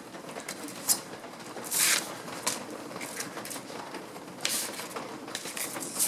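No. 5 bench plane iron being honed by hand on fine sandpaper: irregular scraping strokes of steel on abrasive paper, the loudest about two seconds in, as a slight micro bevel is put on the edge. A faint steady hum sits underneath.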